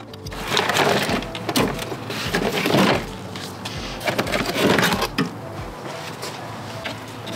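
A car battery and its hold-down being lifted out of the engine bay: a run of loud scraping and knocking of hard plastic and metal over the first five seconds, quieter handling after.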